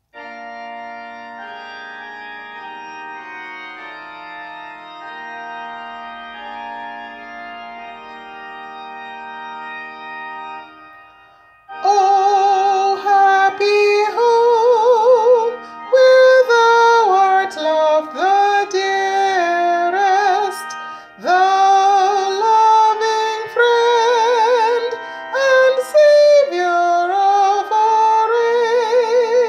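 A hymn sung by a woman soloist with accompaniment. For about the first twelve seconds only held chords play as an introduction, then her voice comes in with a marked vibrato over the chords.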